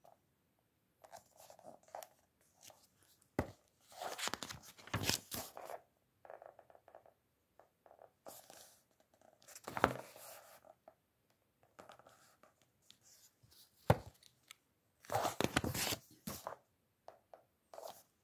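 Paper pages of a book being handled and turned: rustling in several short bursts, with three sharp taps among them.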